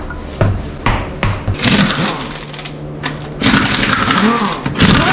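Metal knocks and clanks in quick succession, then longer rattling and scraping near the end, as loose lug nuts and a steel wheel come off a truck hub.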